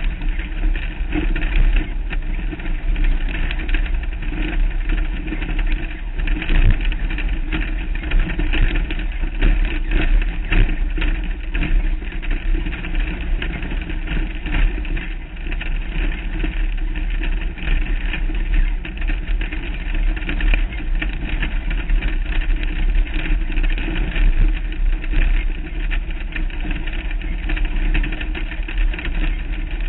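Off-road race vehicle's engine running steadily under way on a rough dirt track, with a heavy low wind rumble on the hood-mounted microphone and frequent short knocks and rattles from the bumps.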